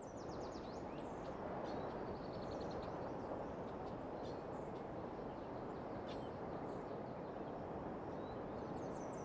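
Outdoor ambience: small songbirds giving short, rapid trills and chirps over a steady rushing background noise.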